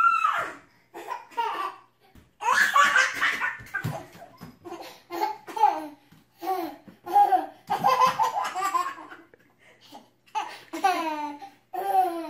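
A toddler laughing hard in a string of short, repeated belly-laugh bursts.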